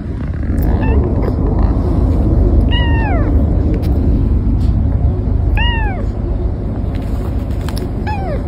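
Cat meowing: four drawn-out meows a couple of seconds apart, each rising briefly and then sliding down in pitch. A steady low rumble runs underneath.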